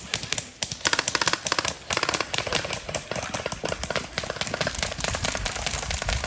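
Airsoft guns firing: rapid strings of sharp clicking shots, thickest in the first half.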